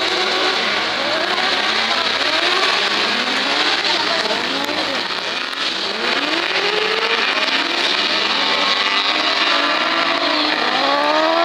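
Several autocross prototype buggies racing together. Their engines rev up and down through gear changes, so many rising and falling engine notes overlap throughout.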